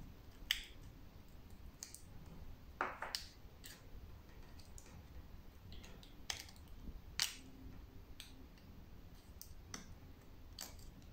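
Scattered sharp clicks and small pops, about ten at irregular intervals, as fingers press and work soft slime with a small plastic cap. The loudest come about three seconds in and again about seven seconds in.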